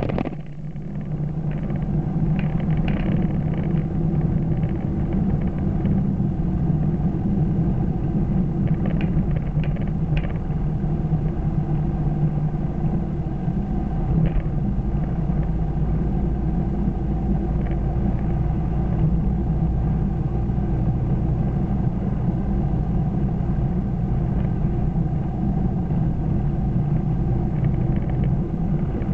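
Car cabin noise while cruising on the open road: a steady low drone of engine and tyres, with the speed edging up slightly.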